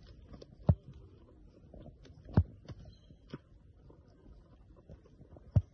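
A wombat chewing corn on the cob up close, making many small crunching clicks. Three heavy low thumps stand out: one about a second in, one near the middle and one near the end.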